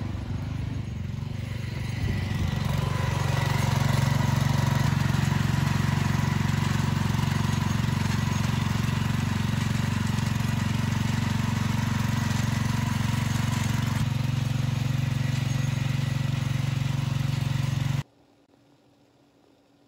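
Small engine of a walk-behind tiller running steadily while it cuts soil into ridges. The sound stops abruptly near the end.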